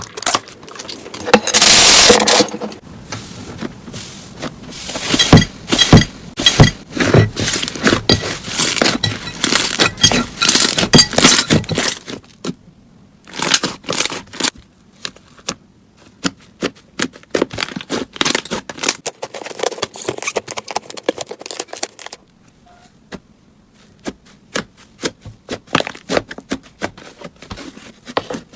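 Slime being squeezed and worked by hand, giving dense crackling and popping clicks, with a loud burst a couple of seconds in; after a short pause the crackling picks up again, then thins to scattered single clicks near the end.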